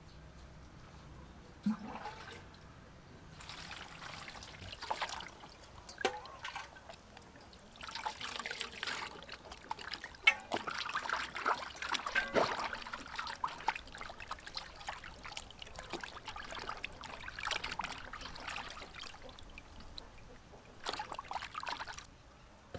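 Raw pig stomach being rubbed and washed by hand in a metal basin of water: water sloshing and splashing in uneven bursts, with a few sharper clicks.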